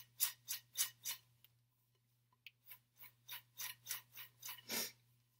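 Popped popcorn rustling against a glass bowl as it is tossed: a run of short, faint swishes, about three a second, that stops for about a second and then starts again.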